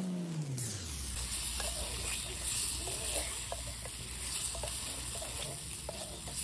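Fish curry sizzling in a miniature clay pot over a small wood fire, with scattered light clicks and scrapes of a wooden spatula stirring it. A short swooping tone rises and falls at the very start.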